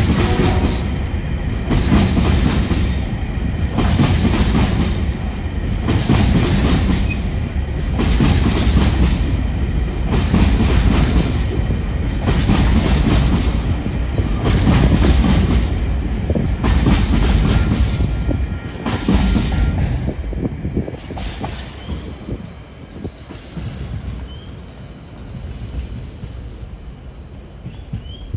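Container freight train wagons rolling past at close range, their wheels clattering over rail joints in a steady rhythm about every second and a half, then fading as the last wagons move away.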